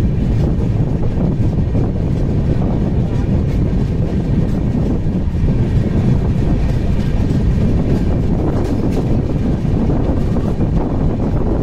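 Rajdhani Express train running: a steady, loud rumble of wheels on track, with faint clicks now and then.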